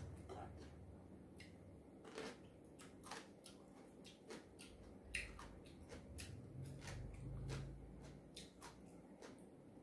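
Faint eating sounds: chewing, with scattered light clicks of chopsticks and a spoon against a bowl.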